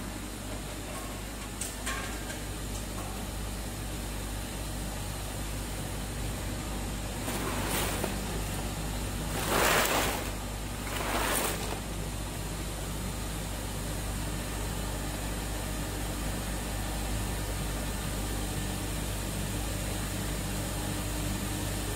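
Steady low hum of the tube ice machine's refrigeration plant running. About eight to eleven seconds in come three short rushing bursts, the loudest about ten seconds in, as a hand handles a plastic basin heaped with ice tubes.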